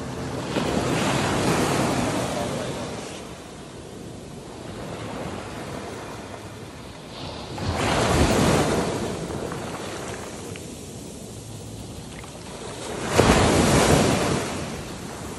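Small sea waves washing up over sand and pebbles at the water's edge: three swells of surf noise, each rising and falling away over a couple of seconds.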